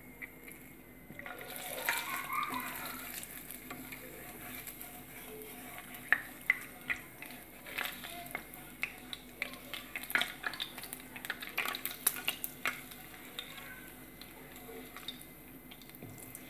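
Whole garam masala spices (cardamom pods and cinnamon) sizzling in hot oil in a non-stick wok and being stirred with a wooden spatula. The sizzle rises about a second in. From about six seconds in, the spatula makes many quick knocks and scrapes against the pan.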